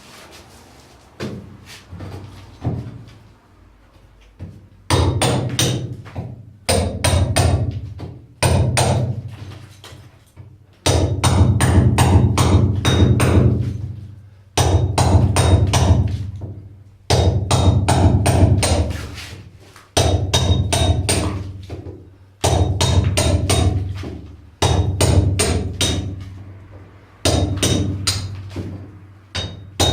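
Hammer blows driving a chisel into a wall by hand to cut a chase (roza), struck in quick runs with short pauses between them. A few lighter taps come first, and the blows grow heavy about five seconds in.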